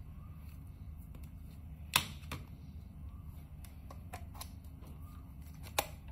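Plastic clicks and light knocks as a Chargeasap Omega 200 charger and its C7 power cable are handled and set down on a wooden desk: a sharp click about two seconds in, a few lighter taps a couple of seconds later, and another sharp click near the end.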